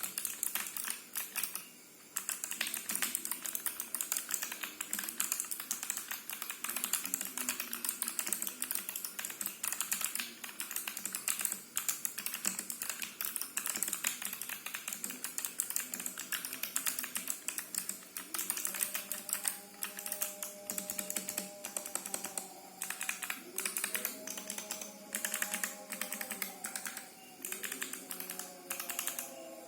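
Continuous fast typing on a TG4X 40% mechanical keyboard with clicky Kailh Box White switches in an acrylic case: a dense stream of crisp clicks. Faint music runs underneath in the second half.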